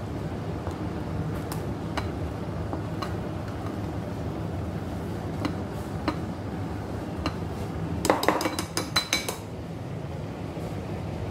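Metal utensil clinking against a ceramic bowl while stirring thick brownie batter: scattered single clinks, then a quick run of about ten clinks about eight seconds in. A steady low hum underneath.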